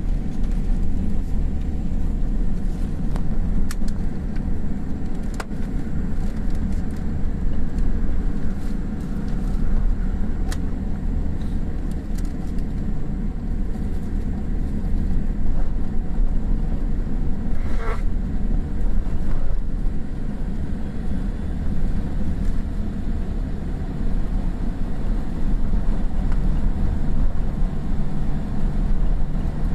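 Cabin noise inside a Boeing 787-8 taxiing after landing: a steady low rumble from the engines at idle and the aircraft rolling along the taxiway.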